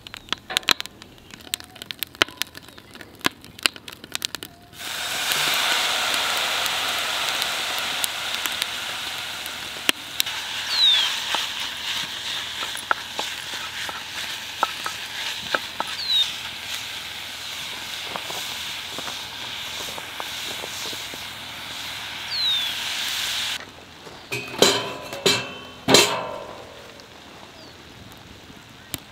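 Wood fire crackling, then about five seconds in ground Italian sausage goes into a hot cast-iron Dutch oven and sizzles loudly while being stirred with a wooden spatula. The sizzle stops short near the end, followed by a few louder knocks and scrapes.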